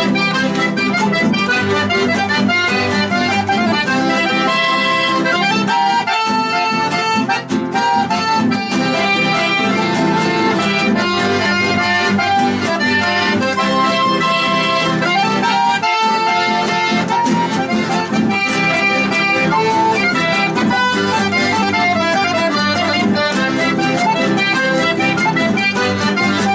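Accordion playing a chamamé-style folk melody, steady and continuous, with sustained, stepping melody lines.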